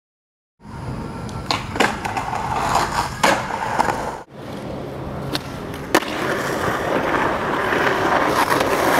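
Skateboard wheels rolling on concrete, with sharp clacks of the board striking the surface, heard in two takes with an abrupt cut about four seconds in. The rolling grows louder toward the end.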